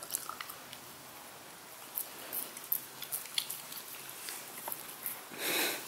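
Corgi puppy licking peanut butter off a chew bone held in a hand: faint, irregular wet licks and small tongue clicks, with a short breathy rush near the end.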